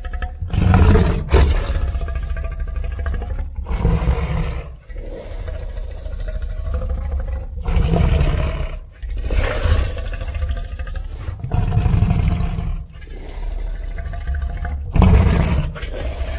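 Sound-effect roars of an invented tapir-elephant creature: a string of deep, loud roars, about seven in a row, each a second or two long and bending in pitch, over a steady low rumble.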